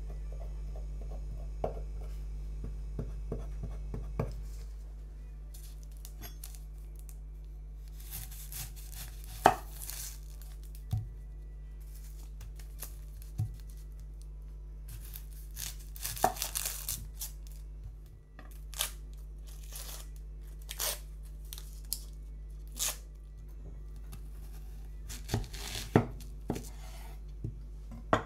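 A knife tip scoring pork slices against a bamboo cutting board, making a run of light taps. Then an onion's dry papery skin tearing and crinkling as it is peeled, with several sharp knocks of a knife cutting through the onion onto a wooden board.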